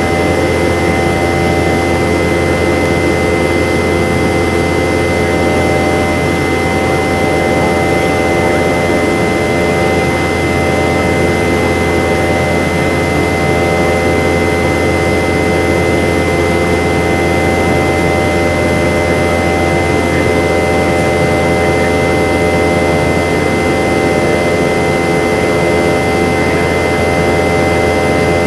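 In-flight cabin noise of a Boeing 717-200, heard from a seat beside its tail-mounted Rolls-Royce BR715 turbofan: a steady jet rush with several steady whining tones over a deep hum, unchanging throughout.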